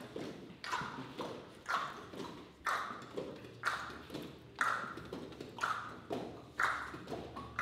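A group's vocal percussion: short clicked and popped mouth sounds in a steady beat, about one strong beat a second with lighter ones between. A low, steady hummed drone joins about three and a half seconds in.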